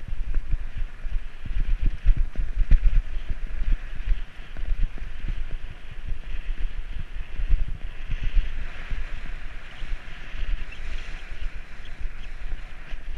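Wind buffeting the microphone of a camera on a moving bicycle, with an uneven low rumble and a steady rushing hiss.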